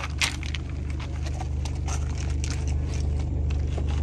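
Car engine idling steadily, a low even hum, with a few crunching steps on river pebbles near the start.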